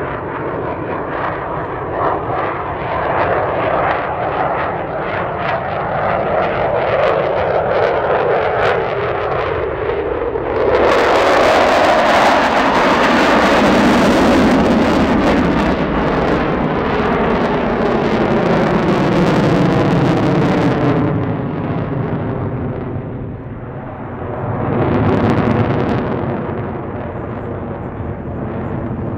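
Danish Air Force F-16 Fighting Falcon's jet engine in afterburner during display flying: continuous loud jet noise with a tone that falls in pitch as the jet passes. It swells loudest and brightest for about ten seconds in the middle, fades, then surges again briefly near the end.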